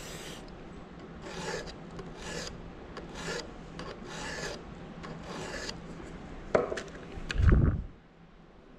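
Flat file rasping across a chainsaw chain cutter in about five slow strokes a second apart, filing the cutter down to the same size as the others. Near the end a sharp click and then a heavy low thump.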